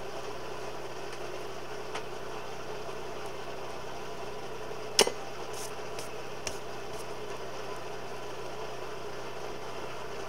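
A steady mechanical hum runs throughout. About halfway through comes one sharp, ringing strike of a small hammer on the anvil, with a few faint taps around it: light planishing blows smoothing a hot spring-steel blade.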